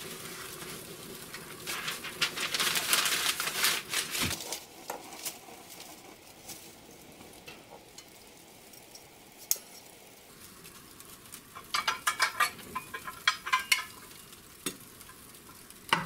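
Newspaper burning and crackling on the gas log of a fireplace insert, lit to flash-heat the cold metal chimney. The crackling is dense in the first few seconds, dies down in the middle, and picks up again with sharp crackles near the end.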